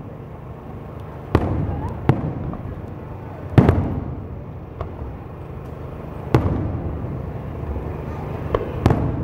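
Aerial firework shells bursting overhead: about six sharp booms, each trailing off in a rumbling echo, the loudest about three and a half seconds in and two close together near the end.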